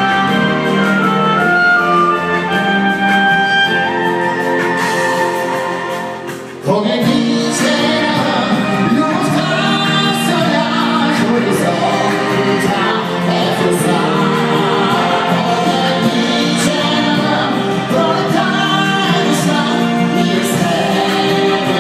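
Amplified pop music in a large hall. About six and a half seconds in, the sound dips and cuts abruptly to a man singing into a microphone over a backing track.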